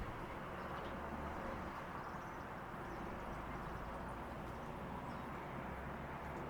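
Steady background hum of distant traffic, with faint high bird chirps now and then.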